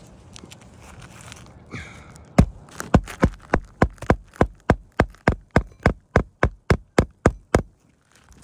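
Hand hammer driving a roofing nail under a lifted asphalt shingle: about eighteen quick, even blows, roughly three a second, then stopping.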